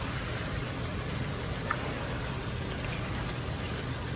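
Curry chicken sizzling in a pot as the liquid cooks down, over a steady low rumble, with a faint click about a second and a half in.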